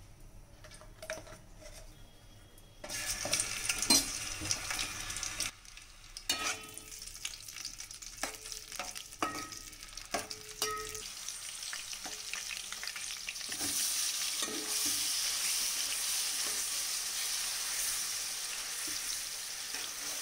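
Green chillies sizzling in hot oil in a steel pan, starting about three seconds in, with a steel spatula clinking and scraping against the pan. From about two-thirds through, the sizzle turns louder and steadier as chopped onions fry in the oil.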